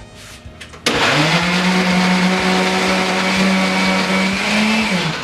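Countertop blender switched on about a second in, its motor running at a steady pitch as it purées roasted tomatoes, onion and guajillo chile with water, then shut off near the end, the pitch dropping as it winds down.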